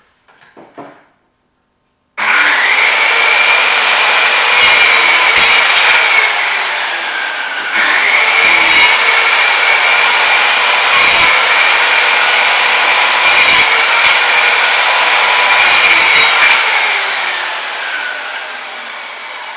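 Bosch PKS 55A 1200-watt hand-held circular saw switching on about two seconds in and running with a steady high whine, its blade biting through wood in five short cuts, then spinning down near the end.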